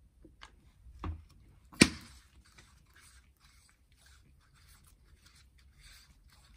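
Handling sounds of gloved hands working an oiled engine piston: a few light knocks, with a sharp knock about two seconds in as the oil bottle is set down on the workbench, then faint rustling and rubbing of the gloves on the piston as it is turned to spread the oil.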